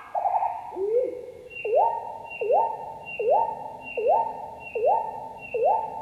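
Nightingale song played back at one fifth of its real speed, so much lower and slower: the end of a strophe, a run of six identical notes about 0.8 s apart, each a quick upward sweep into a held tone, with a fainter higher tone sounding alongside.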